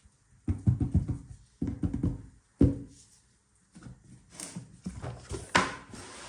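Cardboard gift box and paper card being handled on a table: bursts of knocking and rustling, with a sharp knock about two and a half seconds in, then scraping and rustling as the box lid is opened near the end.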